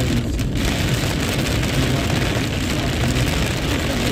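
Heavy rain falling on a car's roof and windscreen, heard from inside the cabin, over a steady hiss and low rumble of tyres on a wet road.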